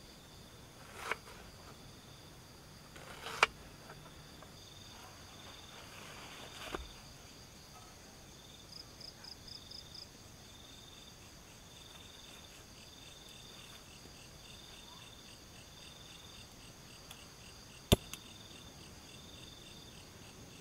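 Night insect chorus, crickets chirping steadily in high pulsing trills, with a short run of six quick chirps about nine seconds in. A few sharp clicks and knocks of camp gear being handled cut through it, the loudest about three and a half seconds in and a sharp double click near the end.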